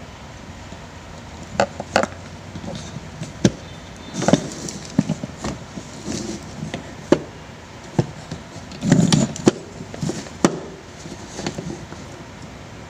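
Electric fan motor parts (rotor on its steel shaft, stator and wiring) handled by hand during disassembly: irregular clicks and knocks of metal and plastic, with a couple of longer rustling, scraping stretches about four seconds in and again near nine seconds.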